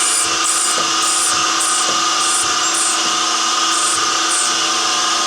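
Surface grinder running with a steady whine as its wheel grinds a weld-repaired steel mould part flat, with short hissing bursts as the wheel passes over the workpiece that stop near the end.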